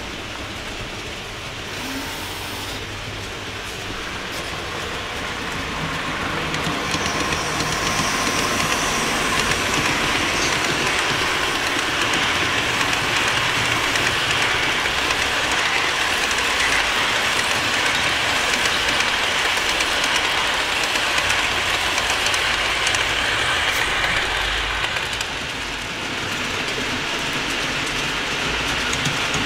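Model train running along layout track, a steady rolling rumble with clicking of wheels over rail joints, growing louder about six seconds in as the train comes closer.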